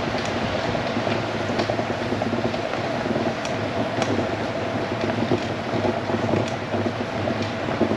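Steady rolling noise of a 20-inch folding minivelo riding on tarmac, with wind on the microphone and a few faint ticks.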